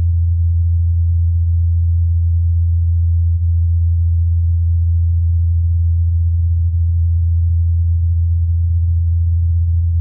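Ingenuity Mars helicopter's spinning rotor blades heard in flight as a steady, loud low hum, recorded on Mars by the Perseverance rover's SuperCam microphone and filtered to isolate the helicopter.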